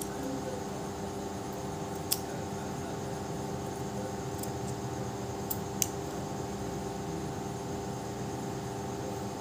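Large steel scissors snipping wool yarn, with a couple of sharp snips about two and six seconds in, over a steady mechanical hum.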